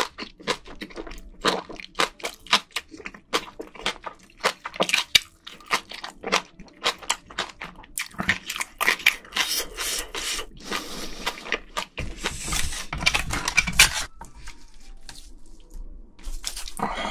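Close-miked eating sounds from a spicy seafood dish: wet chewing and mouth smacks, then scallop shells clicking and knocking in thick sauce as gloved hands pick through the dish. There is a denser run of wet rustling about twelve seconds in.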